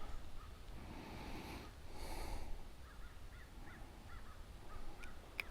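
Birds calling outdoors: a run of short chirps through the middle, with a couple of brief rustling noises before them and a sharp click near the end.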